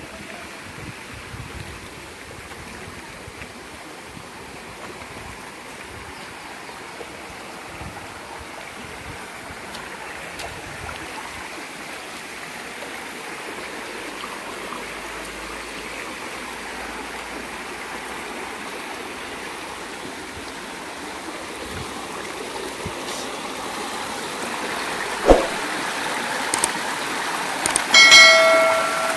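Stream water running over rocks, growing louder toward the end. Near the end come a sharp click and then a short bell-like ding, the sound effects of a subscribe-button animation.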